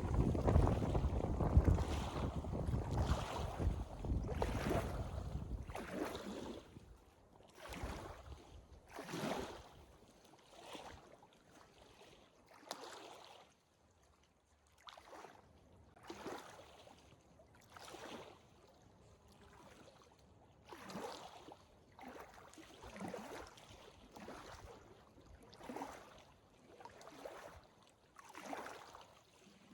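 Wind buffeting the microphone for the first six seconds or so. Then a hiker's footsteps on the trail, one step about every second.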